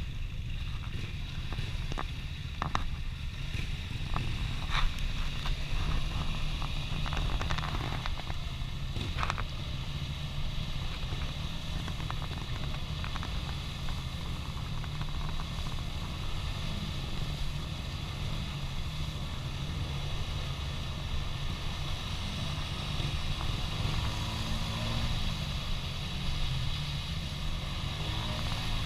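ATV engines running as a four-wheeler churns slowly through a water-filled mud hole, with a few sharp knocks in the first part and the revs rising and falling about three-quarters of the way through.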